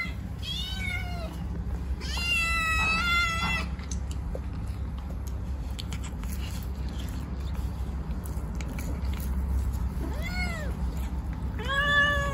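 Kittens meowing while eating, four meows in all. The first is short and falling, the second long and drawn out about two seconds in, and the last two are shorter rising-and-falling ones near the end. A steady low rumble runs underneath.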